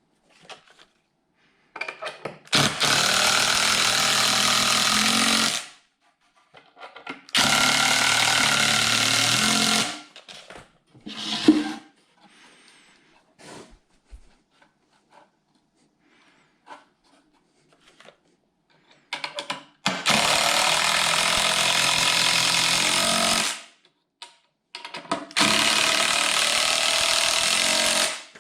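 Handheld power tool run in four bursts of about three seconds each, with small knocks and handling sounds between them.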